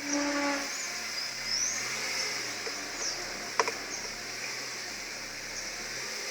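Ford Fiesta 1.0 creaking and squealing while reversing, a noise like an ox cart: a short pitched groan at the start, then several brief high squeaks, and a sharp click partway through. This is the recurring fault the dealer has not yet found.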